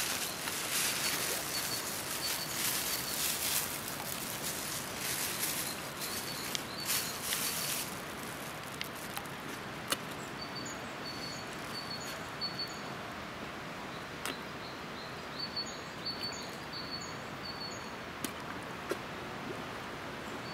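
Outdoor ambience with a small bird chirping over and over, short high notes in little runs. For about the first eight seconds a rustling hiss sits over it, and there are a couple of sharp clicks later on.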